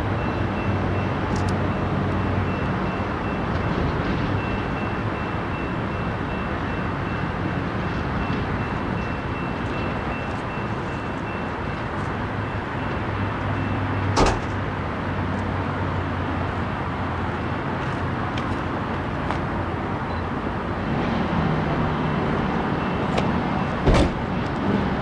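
Steady freeway traffic noise with a low engine drone underneath, broken by a sharp knock about halfway through and another near the end.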